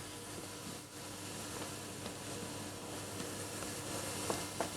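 Diced onions frying in oil in a pan: a steady sizzle. A couple of faint knocks near the end.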